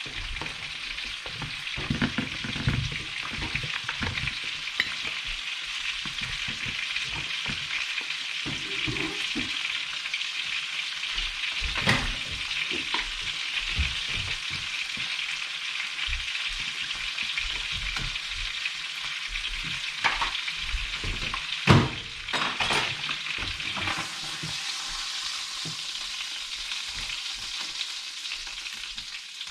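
Turbot fillets sizzling as they fry in butter in a pan, a steady hiss. A few sharp knocks break in, the loudest about 22 s in.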